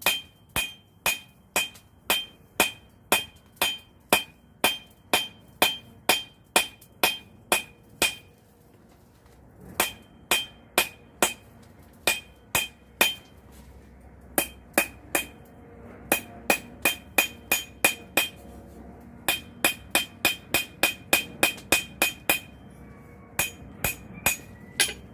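Hand hammer striking hot coil-spring steel on an anvil, forging a knife blade's bevels. Steady blows come about two to three a second, each with a bright ringing tone, in runs broken by short pauses.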